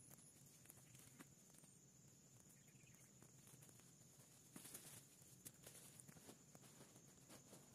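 Near silence: faint scattered steps and rustles of someone moving about on brushy ground, with a short thicker patch of rustling about five seconds in, over a faint steady high hiss.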